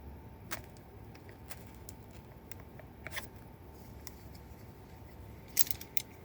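Packaging of a plastic remote control caddy being handled and worked open: a few scattered sharp clicks and rustles, with a louder cluster of clicks near the end. A steady low computer whirr runs underneath.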